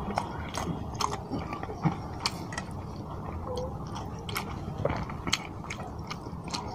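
Close-up chewing of a mouthful of rice and spicy fish curry eaten by hand, with many short mouth clicks scattered throughout.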